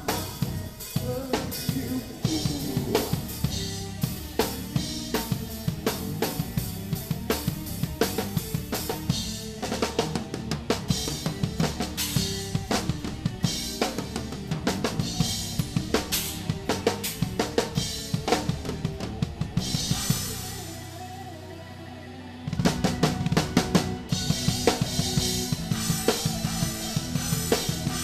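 Drum kit played hard and fast in a progressive metal song: rapid bass drum, snare and cymbal hits over the band. About twenty seconds in the drums drop out for about two seconds, leaving a quieter held low sound, then come back in.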